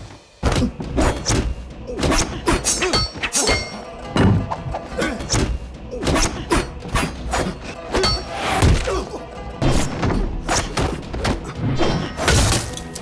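Martial-arts film fight sound effects: a rapid, irregular series of punch and kick impacts over background music.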